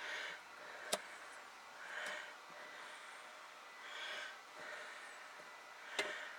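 A person breathing close to the microphone in soft, slow swells about every two seconds, with two sharp clicks, one about a second in and one near the end.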